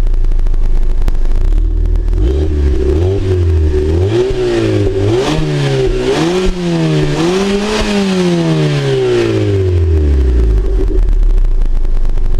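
Fiat Punto 1.2 8v four-cylinder petrol engine on its stock exhaust, idling and then revved up and down several times, each rev climbing higher than the last. After the highest rev it falls slowly back to a steady idle.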